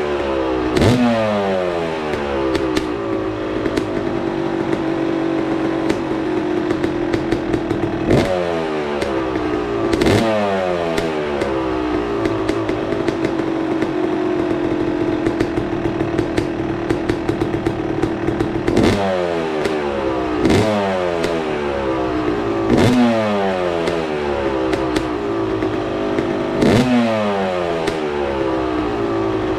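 2024 Yamaha YZ250's single-cylinder two-stroke engine idling with the throttle blipped again and again, each rev shooting up and falling back to idle; a long steady idle stretch in the middle.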